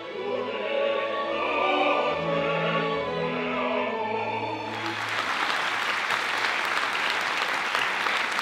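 Youth orchestra with two opera singers, a woman and a bass, holding the closing notes of an opera piece; a little under five seconds in, the music gives way abruptly to audience applause.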